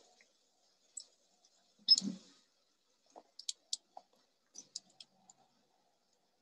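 A few scattered faint clicks and taps, with one louder knock about two seconds in.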